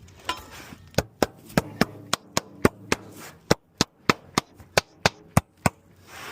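A hammer striking on a shingle roof, about sixteen quick, sharp blows at roughly three a second, with a short break about halfway.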